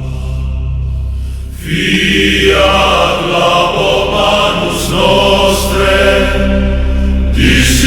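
Choir singing Gregorian-style chant, with long held sung notes over a steady low drone.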